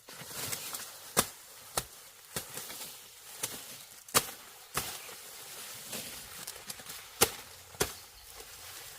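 A hand tool chopping in repeated sharp strikes, about one every half second to a second, with a short pause midway.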